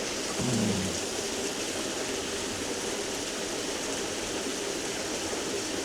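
Waterfall and stream water rushing steadily as an even roar, with a brief hum of a man's voice just under a second in.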